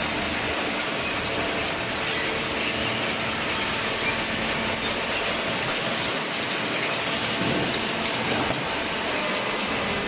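Automatic paper baler line running: its chain-plate infeed conveyor and machinery make a steady mechanical noise, with a faint steady hum underneath.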